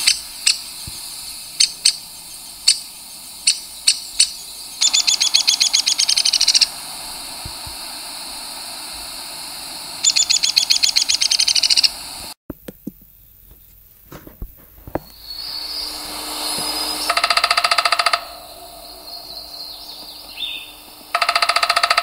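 Downy woodpecker calls: several sharp single 'pik' notes, then twice a rapid run of notes that falls slightly in pitch, the whinny call. After a break about twelve seconds in, a different recording follows with scattered clicks and two rapid rolls, each about a second long.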